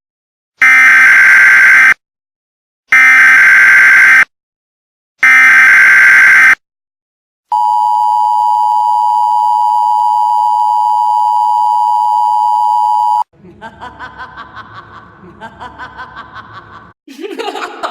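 Emergency Alert System activation: three short bursts of SAME header data tones, each cut off cleanly, then the EAS two-tone attention signal, a steady dual tone held for about six seconds. After the attention signal stops, quieter, rapidly pulsing sounds follow.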